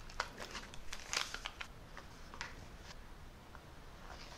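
A few faint crinkles and light taps of a foil powder packet being shaken out over a ceramic bowl, thinning out after about two and a half seconds.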